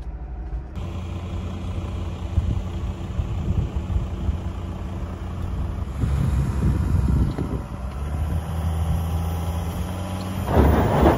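Volvo XC70 D5 diesel running as the car drives, a steady low engine hum under tyre and road noise that rises and falls, with louder rushing surges near the end.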